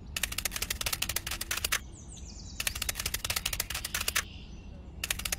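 Rapid, even clicking, about fifteen clicks a second, in three runs: two of well over a second each and a short one at the end.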